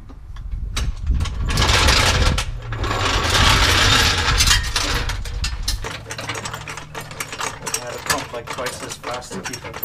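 A steel floor jack rolled and dragged across a concrete floor, a loud rattling scrape for about three seconds, followed by a run of quick metallic clicks from a ratchet wrench working on bolts.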